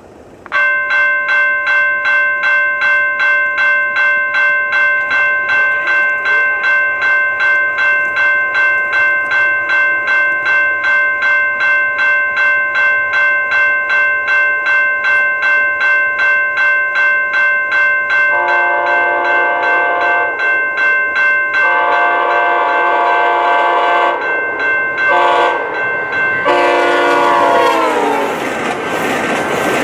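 Level crossing bell ringing, about two strikes a second. About two-thirds of the way in, a VIA Rail Siemens passenger trainset's horn sounds the crossing signal (long, long, short, long), its pitch dropping on the last blast as the train arrives. Near the end comes the rushing noise of the train passing at high speed.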